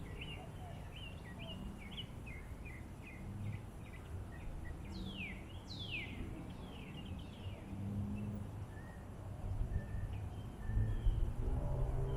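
Small birds chirping over a steady low outdoor rumble: a run of short chirps in the first few seconds, then two long downward-sliding calls about five and six seconds in. Near the end, a low, drawn-out burp begins.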